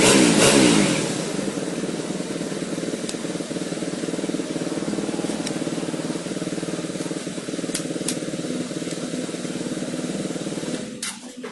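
Yamaha Jupiter Z motorcycle engine revving briefly, then running at a steady idle for about ten seconds until it is switched off near the end, followed by a few clicks.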